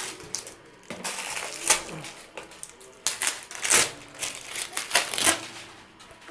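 Thin plastic bag crinkling and rustling in a series of irregular strokes as it is pulled off a plastic toilet-cistern L-bend flush pipe, with light clicks of plastic handling.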